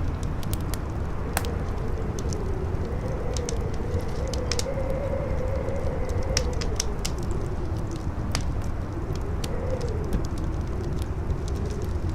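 Wind howling in a faint wavering tone that rises and falls, over a steady low rumble, with a wood fire crackling in scattered sharp pops.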